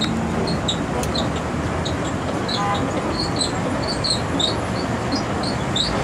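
Steady noise of busy city street traffic, with short high chirps or squeaks repeating irregularly, a few a second.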